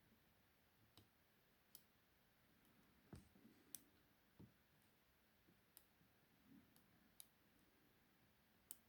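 Faint, scattered metallic clicks of a short hook pick and tension wrench working in the keyway of a 50 mm laminated padlock, probing the pin stacks, about eight irregular ticks over near silence.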